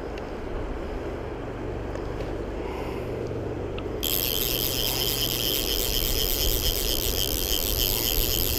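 Wind rumbling on the microphone over the steady rush of river riffles. About four seconds in, a brighter hiss starts abruptly and carries on.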